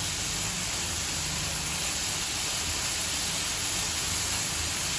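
Yogurt-marinated chicken strips sizzling in a nonstick frying pan, a steady even hiss. The marinade's liquid is being cooked off until the chicken is dry.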